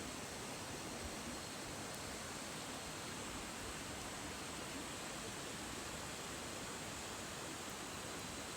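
Steady, even rushing of a mountain stream flowing over its rocky bed.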